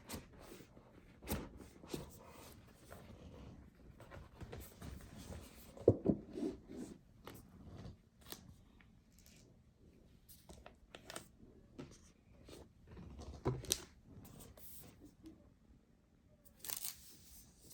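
Laptop packaging being unwrapped by hand: tearing and crinkling of wrapping with scattered small clicks and knocks. The loudest is a sharp knock about six seconds in, and there is a short tearing rustle near the end.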